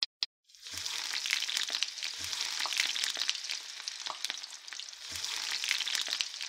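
An egg frying in a pan, a steady crackling sizzle full of small pops, beginning about half a second in after a few sharp clicks.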